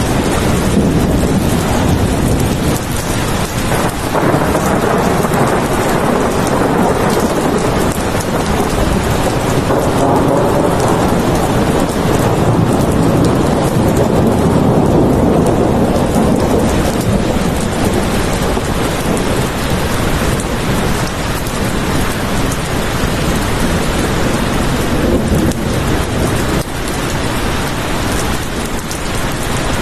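Steady heavy rain hissing, with a low rumble of thunder that swells and fades around the middle.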